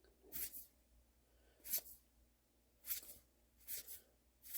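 Trading cards being slid one at a time off a stack from a freshly opened booster pack: five soft papery swishes, about one a second.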